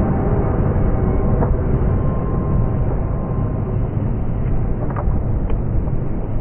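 Freight train rolling past, a steady low rumble of its cars on the rails, with a couple of faint clicks late on.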